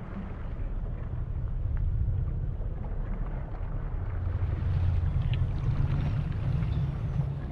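Muffled underwater rumble picked up through a dive camera's waterproof housing, the scuba diver's own breathing and bubbles in it. It swells louder and fuller about halfway through.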